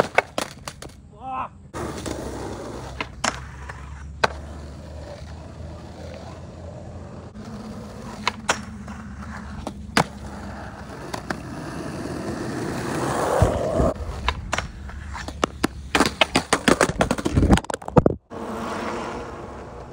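Skateboard on a concrete skatepark: urethane wheels rolling, with many sharp clacks of the board being popped, landed and slapping the ground, a dense run of them near the end.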